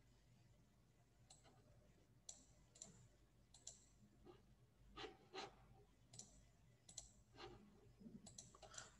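Near silence: faint room tone with about a dozen small, irregular clicks scattered through it.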